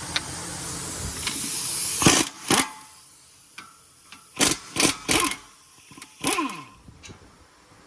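Power tool, likely an impact wrench, run in several short bursts on the 21 mm bolts of the front brake caliper bracket, loosening them; the last burst falls in pitch as the tool spins down.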